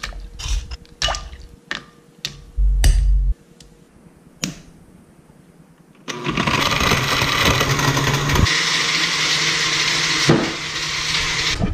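Oster countertop blender switched on about halfway through and running steadily, blending a milkshake of milk in its glass jar; its tone shifts a couple of seconds after it starts. Before that come a few knocks and a brief low thump as the jar is filled.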